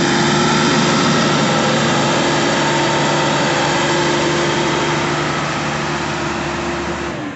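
A diesel engine idling steadily close by, even in pitch and speed. It cuts off abruptly near the end.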